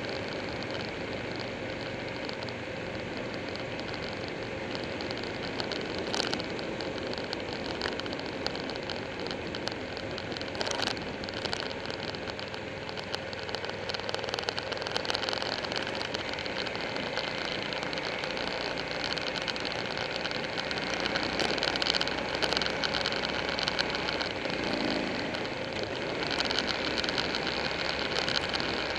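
Motorcycle riding along at a steady pace: the engine's running mixed with wind and road noise on the bike-mounted camera, growing a little louder and gustier toward the end.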